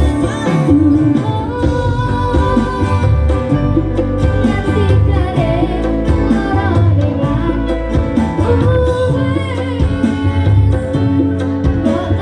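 Music with a singing voice carrying the melody over a steady beat.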